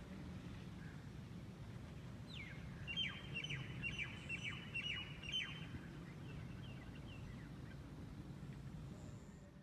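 A bird calling in a quick run of short, high, falling chirps for about three seconds, starting a couple of seconds in, over a steady low background hum.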